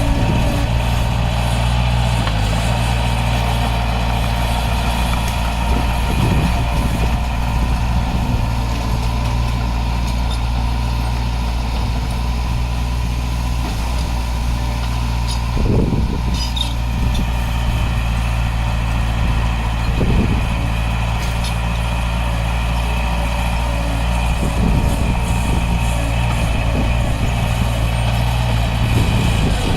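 Heavy diesel earthmoving equipment running steadily at a constant low engine note, with a few short knocks or clanks scattered through.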